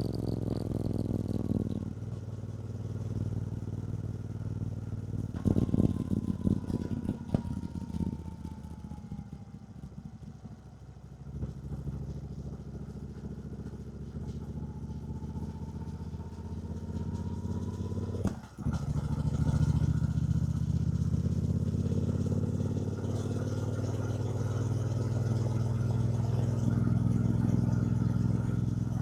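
2024 Triumph Bonneville T120's 1200 cc parallel-twin engine running steadily on the move. It eases off about ten seconds in, dips for a moment about eighteen seconds in, then runs louder through the rest.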